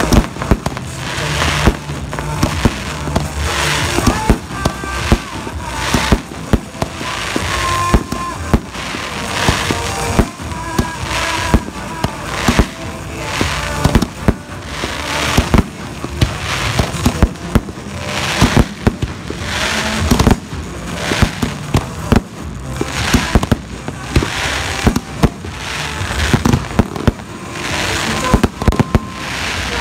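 A fireworks display: a dense, continuous barrage of sharp bangs from bursting aerial shells, the loudest coming every second or two, over steady crackling.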